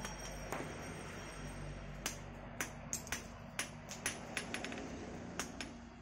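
Hand hammer striking a red-hot iron bar on a small steel anvil: a string of irregular metallic strikes, roughly two a second, each with a short ring. A steady low hum runs underneath.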